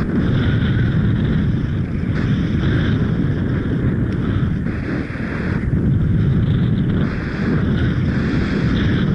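Wind buffeting the microphone in free flight: a loud, steady rumble with a hiss that swells and fades every second or so.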